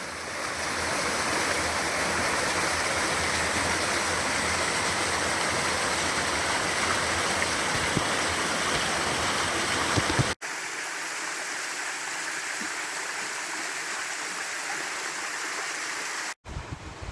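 Mountain stream or waterfall rushing steadily. About ten seconds in the sound cuts to a quieter, thinner rush of water for several seconds.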